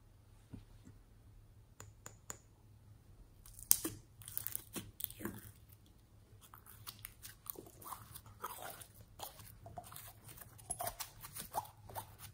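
Green slime pulled out of a small pot and squeezed in the hands, giving a dense run of quick crackling clicks and small sticky pops that start about three and a half seconds in.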